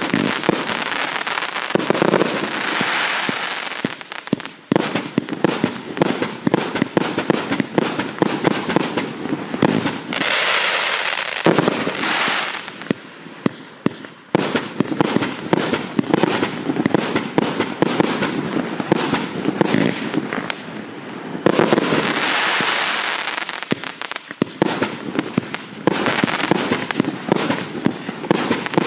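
212-shot fireworks cake firing in rapid succession: a continuous string of launch thumps and aerial pops, broken several times by stretches of dense hissing crackle from the crackling-star effects.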